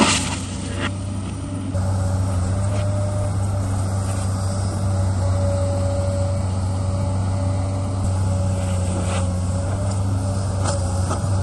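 Komatsu PC200 excavator's diesel engine running steadily under load, with a thin steady whine above its drone. In the first second a bucketload of dirt pours into the steel dump-truck bed with a rush and a few knocks, and a few single clanks come later.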